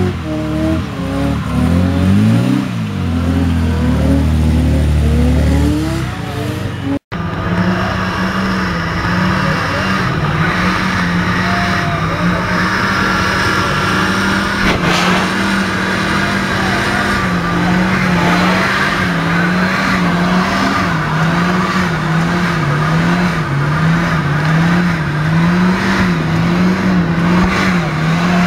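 Car engines revved hard during tyre-smoking burnouts, with the spinning tyres hissing and squealing. For the first few seconds the revs sweep up and down; after a cut about 7 s in, a rear-wheel-drive Volvo 700/900-series sedan holds its engine at high revs, the pitch wavering up and down about once a second as the rear tyres spin in place.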